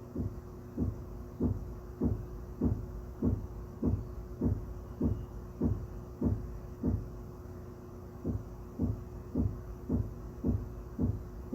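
Dull, low thumps through the ceiling, evenly spaced at a little under two a second with a brief pause about two-thirds of the way through, over a steady low hum.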